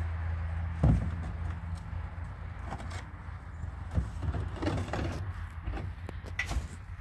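A steady low motor hum, with a heavy thud about a second in, then scattered knocks and clatter.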